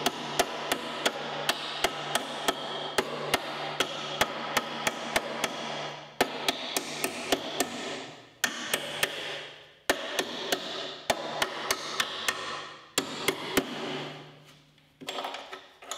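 Ball-peen hammer striking the rusted steel floor pan of a 1959 VW Beetle chassis, knocking the old pan metal off the frame edge. The blows come about two a second in runs with short pauses, over a steady rushing noise that stops and starts with them.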